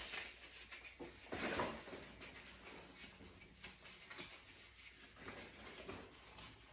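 Light handling noises of paper and box packaging: soft rustles and small knocks as a card and gift box are handled, the loudest rustle about a second and a half in.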